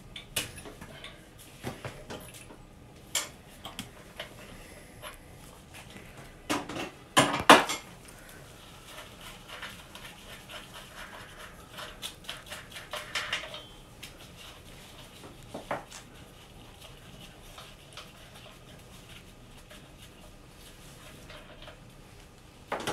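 Socket and breaker bar on the main bearing cap nuts of an MG TD engine, clicking and clinking in metal as the torqued nuts are undone. A couple of louder knocks come about seven seconds in, and a run of quick light ticks follows for several seconds.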